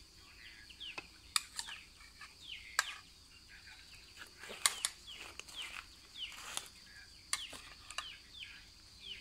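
Chicks peeping over and over in short falling chirps, while a metal spoon clinks sharply now and then against a bowl and an aluminium pot as raw chicken pieces are spooned in. A steady high hum runs underneath.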